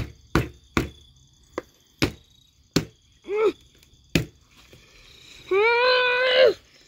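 Sharp knocks on a wooden board, about seven at uneven intervals, as the partly sawn piece is hit to break it off. A short vocal sound comes midway, and a long held vocal note near the end is the loudest thing heard.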